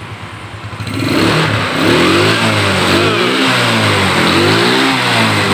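Yamaha Mio Sporty scooter's single-cylinder engine being warmed up. It idles, then from about a second in it is revved again and again, its pitch rising and falling with each twist of the throttle.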